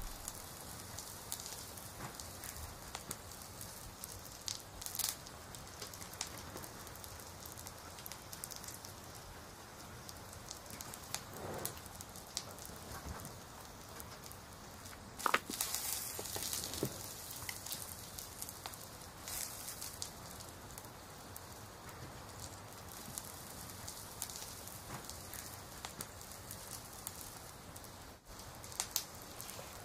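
A steady crackling, pattering background runs throughout, scattered with fine clicks. A few soft rustles and taps from handling paper notebooks rise above it, the loudest about halfway through.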